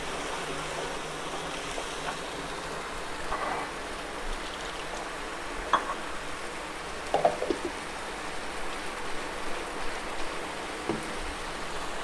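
Thick onion-tomato masala paste sizzling and bubbling in oil in a kadhai, with a few short pops now and then. The oil is starting to separate and rise to the surface, the sign that the masala is nearly cooked.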